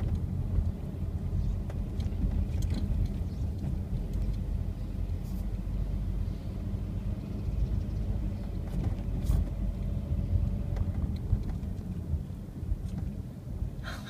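A car driving at low speed, heard from inside the cabin: a steady low rumble of engine and road noise.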